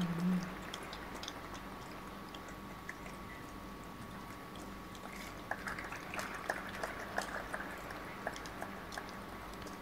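Faint, scattered clapping from the award ceremony's audience, heavier in the second half, over a steady low hum. A brief low sound comes right at the start.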